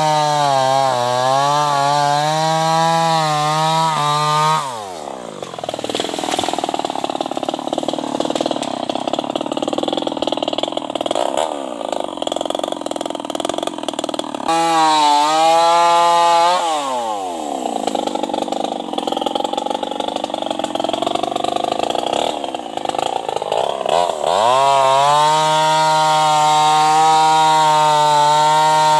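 New West 588 chainsaw with an open straight-through exhaust running at full throttle, its engine note dropping and turning rough twice as the chain cuts into heavy hardwood under load, then rising back to a steady high pitch between and after the cuts.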